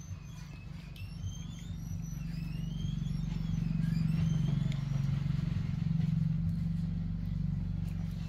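A motor engine running as a low hum that swells over the first few seconds and stays loud. Short high chirps come over it in the first half.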